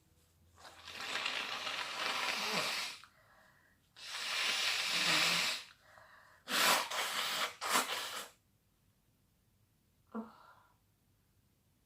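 A person's long, hissing breaths building up, then two sharp sneezes about a second apart, and a brief voiced sound near the end.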